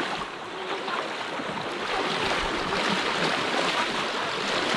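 Flowing stream water rushing steadily, growing a little louder about two seconds in.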